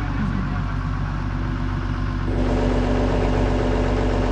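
An engine idling steadily. A little over two seconds in, a steady hum joins it and the sound gets slightly louder.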